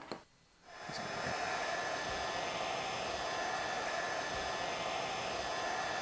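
A click, then less than a second in an electric heat gun starts up and blows steadily with a hum. It is shrinking heat-shrink tubing over the bare wire of the cable.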